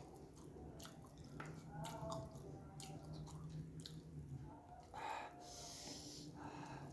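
Close-up eating sounds: scattered wet clicks and smacks of chewing, with fingers working rice and fried tempeh, and a breathy sniff about five seconds in. A faint low hum runs underneath.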